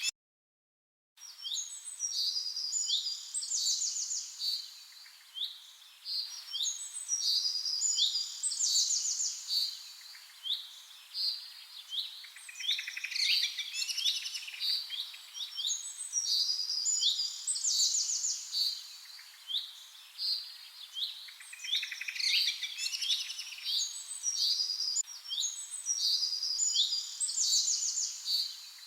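Several songbirds singing and chirping at once in overlapping, repeated phrases and rapid trills. The first second is dead silent, then the song starts abruptly.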